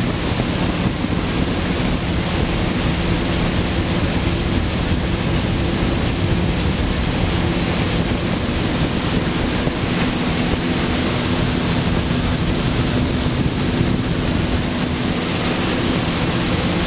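Towboat's engine running steadily at speed, a low drone under the rushing, churning wake water, with wind buffeting the microphone.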